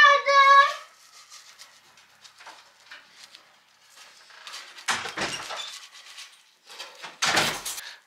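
A brief high-pitched cry that rises in pitch at the start, then a kitchen knife scraping against the metal top of a wood stove twice, about five and seven seconds in, as it is worked under a cooking pancake.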